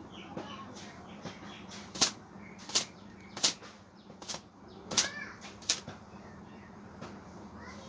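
Long wet hair being whipped and flicked by hand to shake the water out, making about six sharp swishing snaps in quick succession from about two seconds in.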